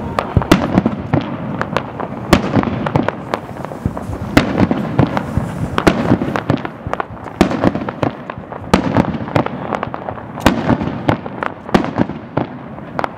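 Aerial firework shells bursting: many sharp bangs and pops in quick, irregular succession.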